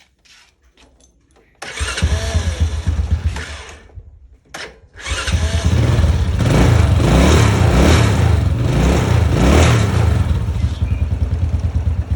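Small engine starting after its bad capacitor has been replaced: it catches about a second and a half in, runs and fades out, then catches again about five seconds in and keeps running steadily.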